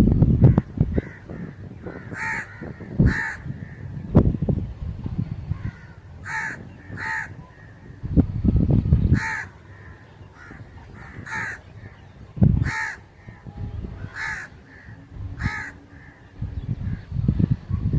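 Crow cawing: about nine short, harsh caws spaced a second or more apart, some coming in pairs. Low rumbles sound in between a few times.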